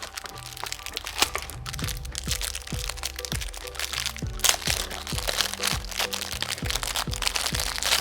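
Background music with a steady drum beat, over dense crackling and crunching clicks of something being handled. The clicks are loudest about halfway through and again near the end.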